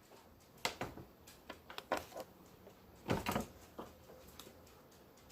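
Scattered light clicks and taps of small plastic toy pieces being handled, with a slightly louder cluster of knocks about three seconds in.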